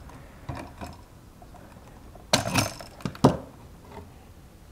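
Wire cutters snipping and working the copper conductors at an outlet box: a few sharp metallic clicks and snips, the loudest cluster a little past two seconds in, then two more quick snaps.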